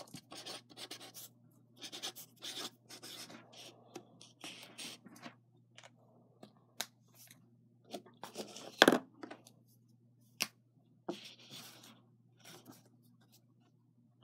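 Marker writing: a run of short, scratchy pen strokes, with a loud sharp click about nine seconds in.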